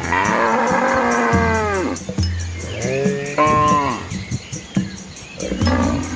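Cattle mooing: a drawn-out call falling in pitch for about two seconds, then a shorter call about three seconds in that rises and falls, with a deeper, lower call underneath at times.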